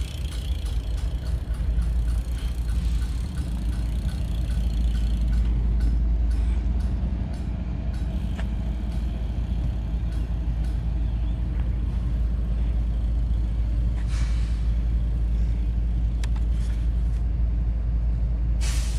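A train running with a steady low rumble, scattered clicks and knocks, and two short hisses, about two-thirds of the way in and again near the end.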